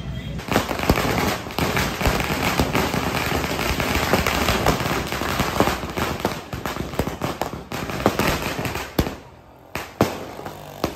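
Firecrackers going off on the street in a long, rapid crackle of many small bangs. About nine seconds in it thins to a few separate loud bangs.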